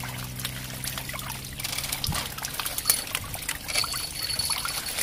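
Water trickling and pouring off a net fish trap as it is hauled out of a pond, with scattered small knocks and clicks. A low steady hum fades out about a second and a half in.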